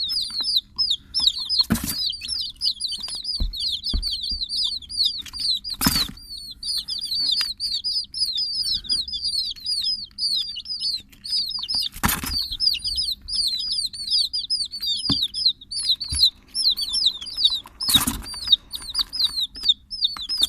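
Baby chicken chicks peeping nonstop: short, high, downward-falling peeps, several a second, overlapping. Four brief, loud rustles or flaps cut through, about every six seconds.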